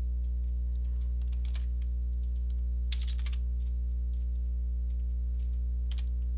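Computer keyboard typing: scattered key clicks with a quick cluster about three seconds in, over a steady low electrical hum.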